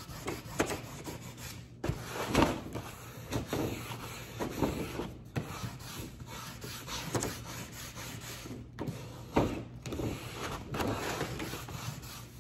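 Plastic scraper burnishing a sheet of paper pressed onto inked stencils to pull a print: repeated scratchy rubbing strokes, about one a second.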